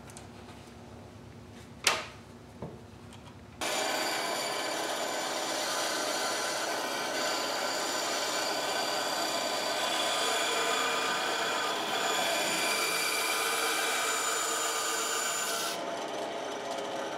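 A single sharp tap about two seconds in, then a bench-top band saw starts abruptly about three and a half seconds in and runs steadily with a whine, its blade cutting small pieces of wood.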